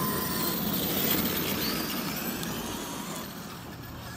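Large brushless electric RC truck driving over grass and dirt: motor whine with tyre and drivetrain noise, dropping in level about three seconds in as it gets farther away.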